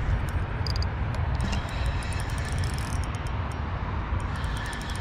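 Spinning reel being cranked to bring in a small hooked bass, with scattered light clicks over a steady low rumble of wind on the microphone.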